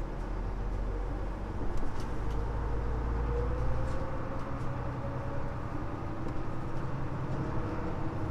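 Mitsubishi Fuso LKG-MP37FM city bus running, its steady low diesel engine hum joined by a whine that rises in pitch about three seconds in, with a few faint ticks.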